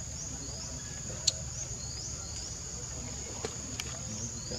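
Forest insects droning steadily at a high pitch, with short rising chirps repeating every second or so and a single sharp click about a second in.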